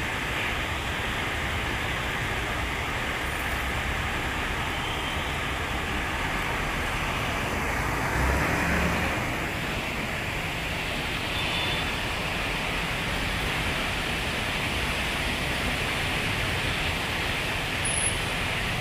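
Street traffic on a rain-wet road: a steady hiss of rain and tyres on wet tarmac, with car and motor engines running under it. A bus passes close by about eight seconds in, briefly louder with a deeper engine rumble.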